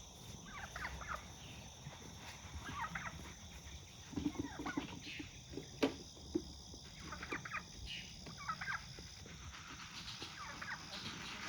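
Domestic poultry calling in short scattered bursts of clucks and gobble-like notes, with a single sharp click about six seconds in.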